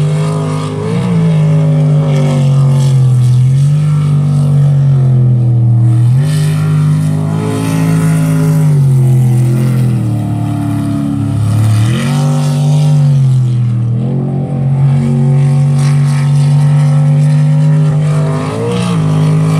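Jet sprint boat engine running hard, loud and continuous. Its pitch drops and climbs again several times, about every two to four seconds, as the throttle is eased and reopened.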